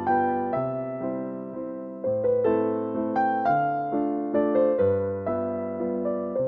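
Background piano music: gentle struck notes in a slow, even melody over changing bass notes, each note fading after it is struck.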